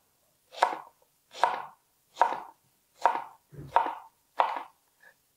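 Chef's knife dicing strawberries into small cubes on a cutting board: about six chops at an even pace, a little under one a second.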